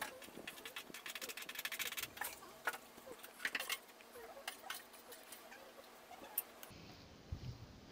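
Pressure cooker's valve rattling faintly on the stove in irregular clicks: a rapid run of them from about half a second to two seconds in, then scattered single ticks.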